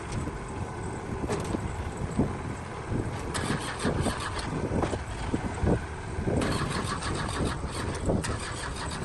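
Heavy machinery engine running with a steady low rumble, with a series of knocks and two spells of rattling and clanking, the first about three seconds in and the second about six and a half seconds in.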